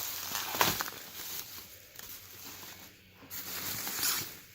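Handling noises from unpacking: plastic packaging rustling, with a couple of light knocks, the louder one about half a second in and another near the end.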